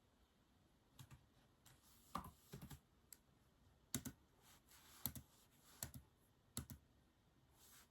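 Typing on a keyboard: irregular, unhurried keystroke clicks, some in quick pairs, with short pauses between them.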